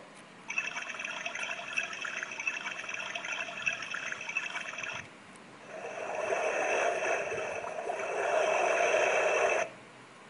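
Recorded sound of trickling water played through a star-sky projector alarm clock's small speaker, in two stretches with a short break about five seconds in.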